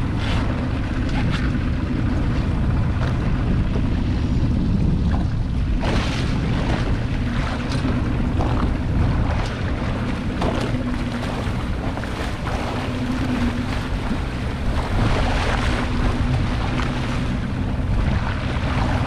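Yamaha Enduro 15 two-stroke outboard motor running steadily, driving a small open boat under way, with wind buffeting the microphone and water rushing and splashing along the hull.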